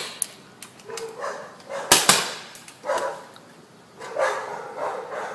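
Two sharp paintball gun shots, one right at the start and one about two seconds in. A dog barks repeatedly around them, most steadily near the end.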